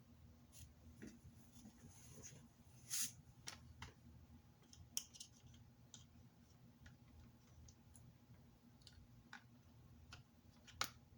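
Faint, scattered metallic clicks and taps of Glock 45 pistol parts being handled during reassembly with the new barrel, the loudest about three and five seconds in.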